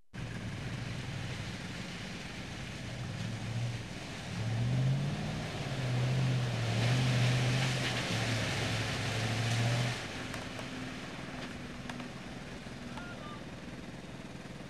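Land Rover 101 Forward Control's V8 engine revving hard under load in deep mud, the note rising and falling. It drops back to a quieter, steadier run about ten seconds in.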